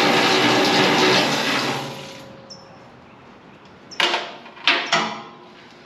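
Aerosol wasp spray can hissing in one long spray that fades out about two seconds in, followed by a few sharp metal clanks near the end.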